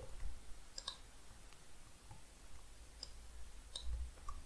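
A few scattered computer mouse clicks, sharp and quiet, as text is selected in an editor.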